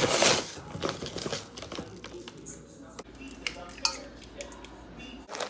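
Kitchen handling sounds around a stainless-steel mixing bowl: a loud, brief noisy burst at the start, then scattered clinks and knocks of utensils and ingredients against the bowl, with a sharper knock about four seconds in.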